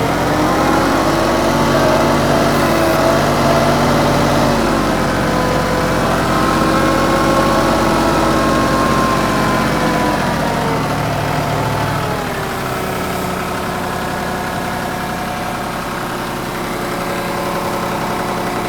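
Compact tractor's diesel engine (TYM 2515H) running at high revs, its pitch shifting up and down as it works the front loader to lift a stump. About twelve seconds in it settles to a lower, steadier run.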